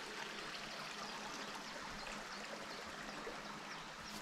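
Small moorland river running steadily, an even rush of flowing water.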